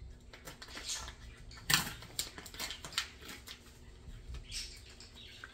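Scattered clicks, taps and light rustles of kitchen items being handled on a countertop, with one sharper knock a little under two seconds in.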